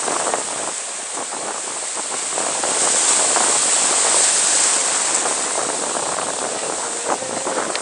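Ocean surf in the shallows: waves breaking and foaming white water washing around, an even rushing noise that swells for a couple of seconds in the middle.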